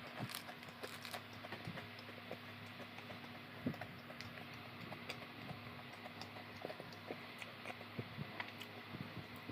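Scattered small clicks and taps from eating and handling food, over the steady hum of an electric fan.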